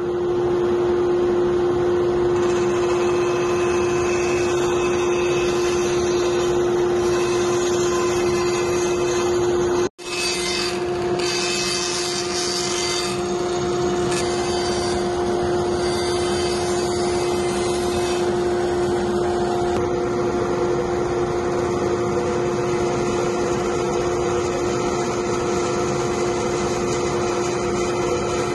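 Bandsaw running and ripping thin strips off hardwood blocks against the fence: a steady hum with the hiss of the blade cutting through the wood. The sound breaks off for an instant about ten seconds in, and the cutting hiss is sharper for several seconds after.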